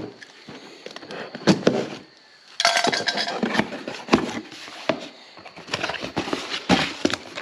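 A fender eliminator kit being unpacked: packaging rustling and crinkling, with its metal brackets and hardware clinking and knocking a few times.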